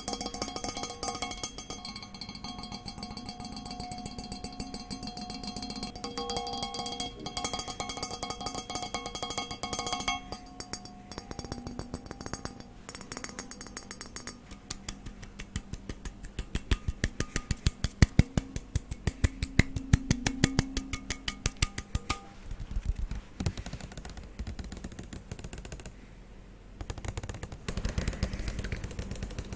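ASMR tapping on hard objects: crisp taps over a low white-noise bed. In the first third the taps set off ringing tones like struck glass or metal. From about halfway there is a fast, even run of loud sharp taps, then sparser tapping.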